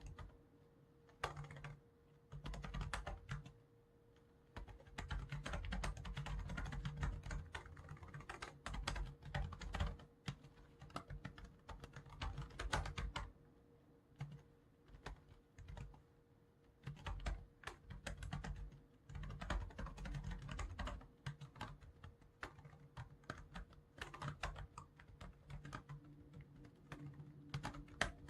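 Typing on a computer keyboard: quick runs of key clicks in bursts of a few seconds, broken by short pauses.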